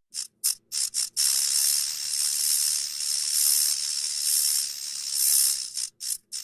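An animal hissing: a few short sharp hisses, then one long hiss of about four and a half seconds that swells and fades several times, then short hisses again.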